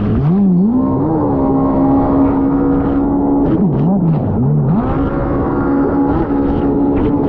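A racing personal watercraft's engine, heard onboard, briefly drops and climbs back in revs twice, about a second in and again around the middle. Between the dips it holds a steady high pitch at speed, with short sharp slaps throughout.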